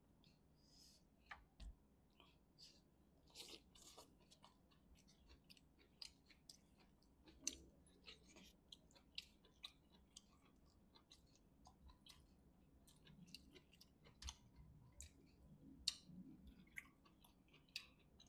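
Faint close-up eating sounds: chewing and fingers picking apart curried chicken, a string of short, wet clicks and smacks with a few sharper ones.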